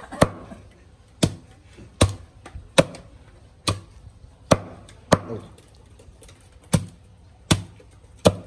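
Heavy cleaver chopping through a crocodile tail, scaly skin and backbone, into steaks on a wooden chopping block: about ten sharp chops, roughly one a second, each cut landing on the wood.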